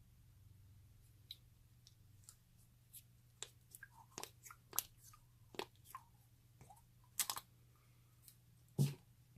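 Slime being handled by hand, giving scattered sharp sticky clicks and pops, with a louder low thud near the end.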